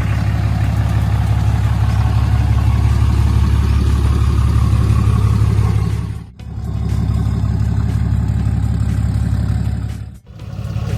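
Vehicle running with a loud, steady low rumble, broken off sharply twice, about six and ten seconds in.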